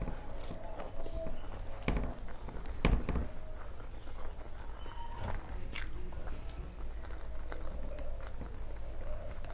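Close-up eating sounds: a person chewing and smacking while eating rice and curry by hand, with irregular short clicks and soft taps.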